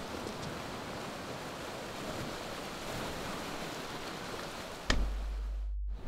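Sea waves breaking on rocks, with wind. About five seconds in, a sudden hit is followed by a deep steady low hum as the surf drops away, cut off near the end.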